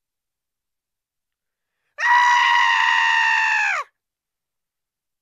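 A single drawn-out, high-pitched scream starting about two seconds in. It holds one pitch for just under two seconds, then slides down as it cuts off.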